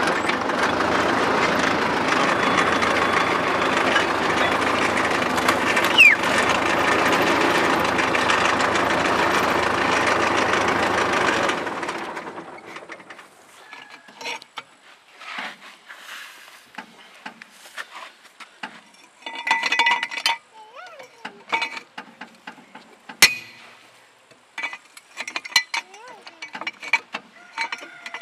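An engine idles steadily, then is switched off about twelve seconds in. After that come scattered metal clinks and scrapes of a wrench being worked on the car's wheel nuts, with one sharp metallic knock a few seconds before the end.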